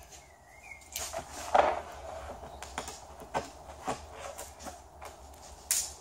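Fibreglass mould being worked free of its waxed plug by hand: an irregular series of sharp cracks and knocks, the loudest about one and a half seconds in.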